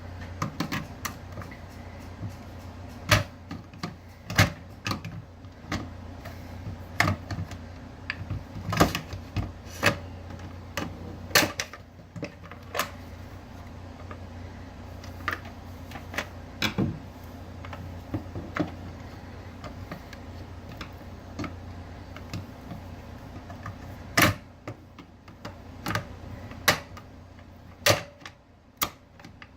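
Irregular sharp clicks and knocks, some loud, scattered throughout: tools and small metal parts clinking and being set down while a kitchen mixer grinder's motor is taken apart.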